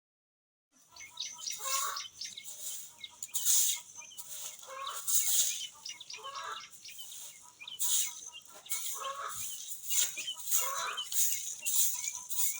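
Chickens clucking in short, repeated calls every second or two.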